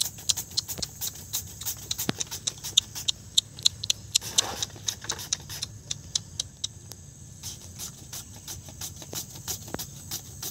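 Hand-held julienne grater scraping through peeled papaya in quick strokes, about four sharp scrapes a second, slowing after the first few seconds. Steady insect chirring carries on underneath.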